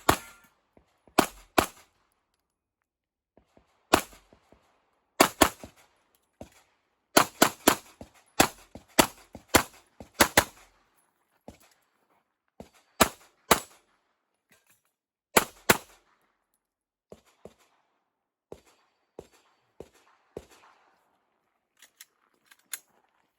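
Glock 17 Gen 5 9mm pistol fired in quick strings of shots with short pauses between them. The shots come in clusters for about the first sixteen seconds, then only fainter scattered pops are heard.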